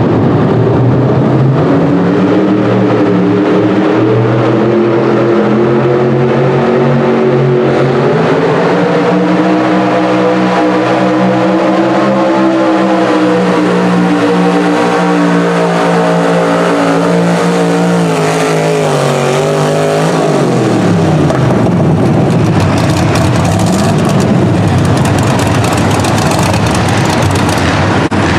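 Pro stock mini pulling truck's engine running hard under load as it drags the sled, its pitch climbing over the first dozen seconds and wavering; about twenty seconds in the revs drop steeply as the pull ends, leaving a rougher, noisier engine sound.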